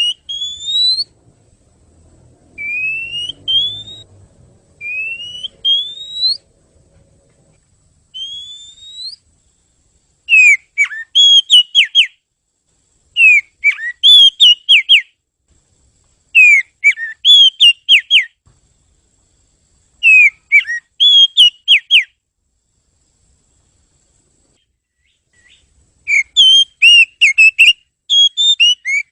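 Oriental magpie-robin (kacer) singing. It opens with several rising whistled notes of about a second each, then from about ten seconds in breaks into quick clusters of sharp, warbling notes, repeated every few seconds.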